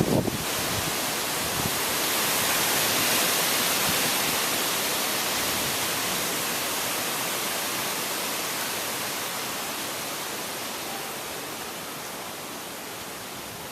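Strong storm wind rushing through large trees, a steady sound of rushing air that swells a couple of seconds in and then slowly eases.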